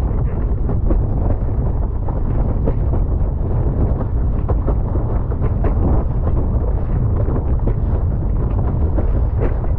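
Strong wind buffeting the microphone of a boom-mounted action camera on a windsurfer planing at speed, a loud steady rumble, with frequent short slaps and hiss of spray and chop against the board and sail.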